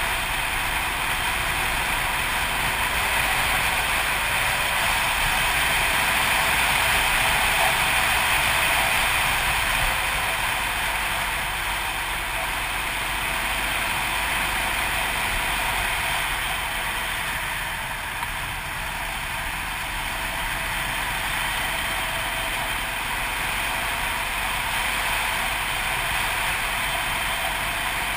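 Yamaha TT600RE single-cylinder four-stroke engine running steadily while the motorcycle rides along at road speed, blended with steady wind rush, dipping slightly about two-thirds of the way through.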